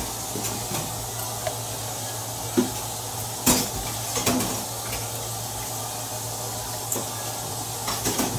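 Metal spoon scraping sofrito out of a plastic tub into a pan, with a handful of short sharp clinks and taps, the loudest about three and a half seconds in, over a steady hiss and low hum.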